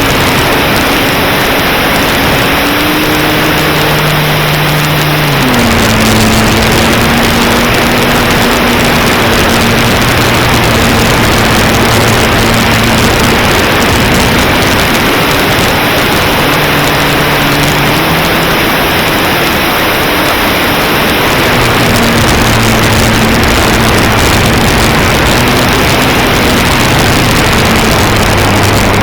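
A small propeller engine running in flight, with heavy wind noise over it. Its note drops about five seconds in, rises for a couple of seconds later on, then settles lower again, as the throttle is eased back and opened.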